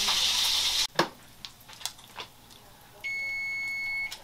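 Bacon sizzling in a frying pan, cut off about a second in. A few faint clicks follow, and about three seconds in the GE electric range's timer sounds one steady beep lasting about a second, signalling that the countdown has run out.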